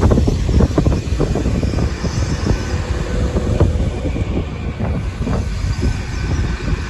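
Train running past on the track: a heavy, loud rumble with many irregular knocks from the wheels.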